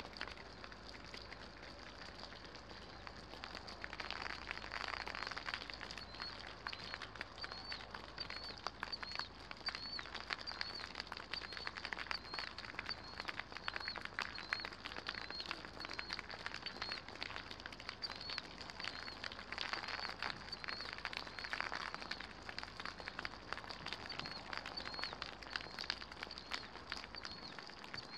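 Rain pattering steadily on wet ground and surfaces, swelling louder about four seconds in and again about twenty seconds in. A bird repeats one high chirp over and over.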